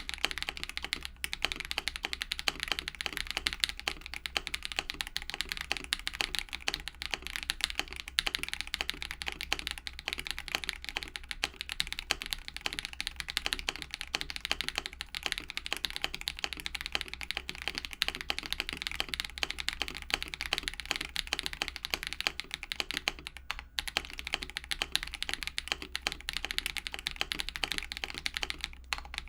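Fast, continuous typing on a mechanical keyboard fitted with lubed Akko CS switches: a dense, rapid patter of keystrokes with a couple of brief pauses.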